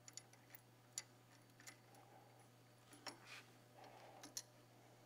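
Faint, scattered small metallic clicks and ticks as an acorn nut and its washers are turned off a carriage bolt by hand, with brief soft handling rustles.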